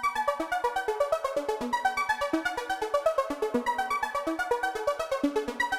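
Background music: a bouncy synthesizer tune of quick, evenly pulsed keyboard notes with a moving melody.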